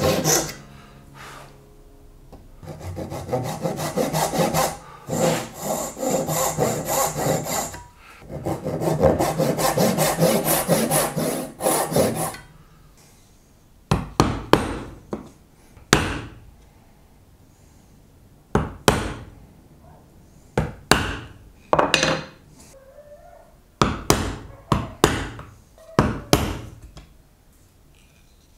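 Backsaw cutting dense wood (bog oak) in quick rasping strokes, in two runs with a short pause between. Then the sawing stops and a string of separate sharp taps follows as a chisel chops out the waste between small dovetails.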